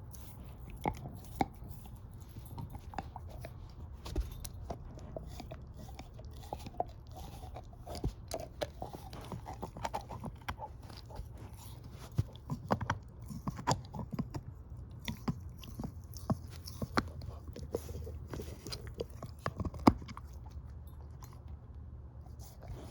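Shepherd-mix dog chewing a bone: irregular wet crunches and sharp cracks as its teeth grind and bite down, with one especially loud crack near the end.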